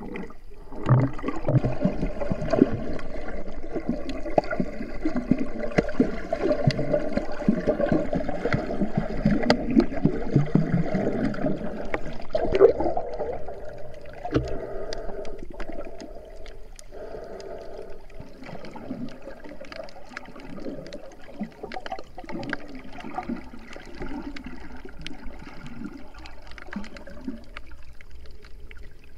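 Water gurgling and sloshing around an action camera held underwater, with a faint steady hum alongside. It is louder in the first half and settles quieter after about halfway.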